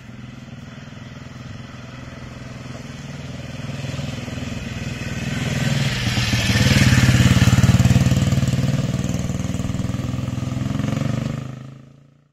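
Junak motorcycle's single-cylinder four-stroke engine running as the bike is ridden over cobblestones. It grows louder as the bike approaches, is loudest as it passes a little past the midpoint, fades as it rides away, and cuts off suddenly near the end.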